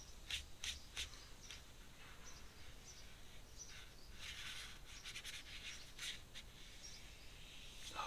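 Faint strokes of an ink brush across paper: several short scratchy dabs and a longer sweep about four seconds in.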